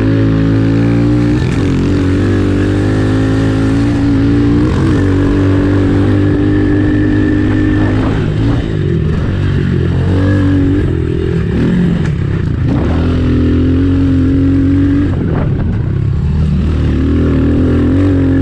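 Honda CRF110F pit bike's small single-cylinder four-stroke engine being ridden hard. The revs climb and drop several times as the throttle is opened and closed.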